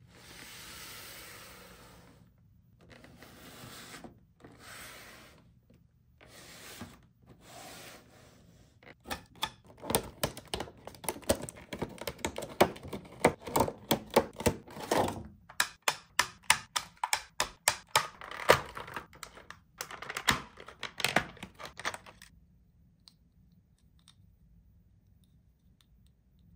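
Toy packaging being opened by hand. First come several long scraping strokes as tape on a cardboard box is cut, then a fast run of clicks and crackles from cardboard and plastic packaging, which stops near the end.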